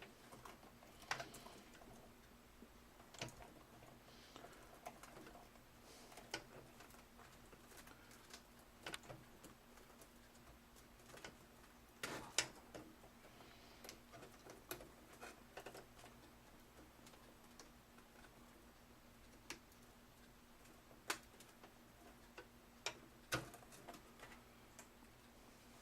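Scattered faint clicks and taps of power cables and plastic connectors being handled and plugged into drives inside a computer case, the sharpest about halfway through, over near silence with a faint steady hum.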